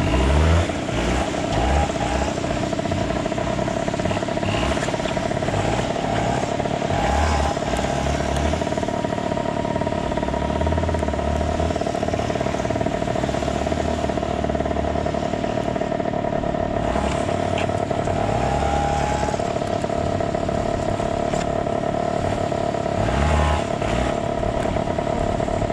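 Kawasaki KX60's small two-stroke single-cylinder engine running continuously as the dirt bike is ridden, a steady drone rising in pitch a few times as the throttle is opened.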